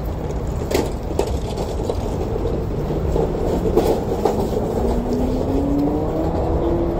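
A vehicle running over a steady low rumble, its pitch rising slowly over the last three seconds, with a few sharp knocks about a second in.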